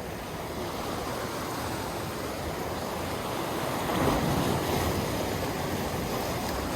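Sea waves washing in with wind, a steady rush that swells for a moment about four seconds in.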